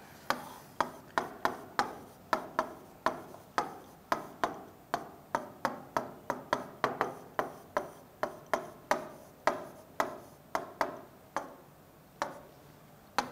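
Marker tip clicking and tapping against a whiteboard as a word is handwritten: a run of sharp, short clicks at an uneven two to three a second.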